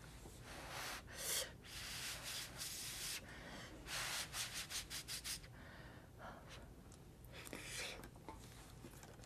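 Close-miked eating sounds: a spoonful of rice taken into the mouth and chewed, with soft breaths, and a quick run of small mouth clicks about four seconds in.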